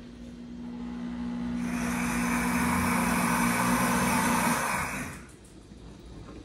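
Pampered Chef Deluxe Cooking Blender's motor running during its jam-cooking cycle, stirring the hot blackberry mixture. A steady hum builds over the first second or two, a whirring joins it, and it winds down and stops about five seconds in.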